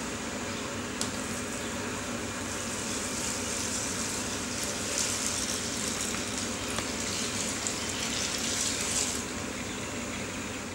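Hot sparge water poured from a plastic pitcher into a drink-cooler mash tun, a splashing pour that swells from about two and a half seconds in until about nine seconds, over a steady background hum.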